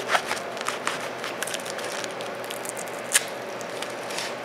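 Kitchen knife cutting through a roll of dried strawberry fruit leather wrapped in plastic cling wrap: crinkling and crackling of the plastic with small clicks, thickest in the first second, and one sharper click about three seconds in. A faint steady hum underneath.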